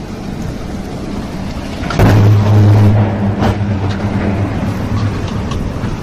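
Storm-force wind and rain, a continuous loud rushing roar. About two seconds in it swells suddenly and a low steady hum joins, which dies away over the next few seconds.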